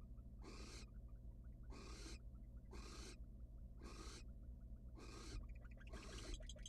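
Barn owl giving rasping, hissing 'snoring' calls, repeated about once a second: the barn owl's food-begging call. A faint steady low hum runs underneath.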